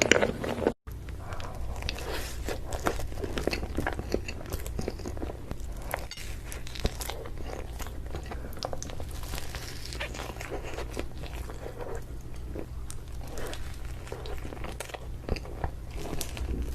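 Close-miked eating of cake: biting and chewing with many small irregular crunches and crackles over a steady low hum. The sound drops out for an instant about a second in, then the chewing goes on.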